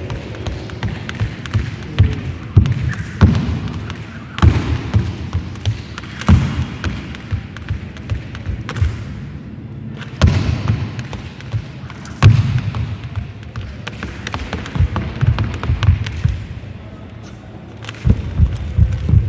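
Skipping rope slapping a hard sports-hall floor and feet and hands landing during a freestyle rope-skipping routine: irregular runs of quick slaps and thuds, with a few louder thuds midway.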